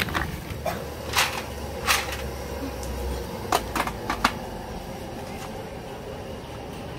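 Mussel shells clacking as hands sort them in a plastic basin, about four separate clacks half a second apart, then a quick run of five knocks as an aluminium steamer pot of mussels is handled. A steady low hum sits underneath.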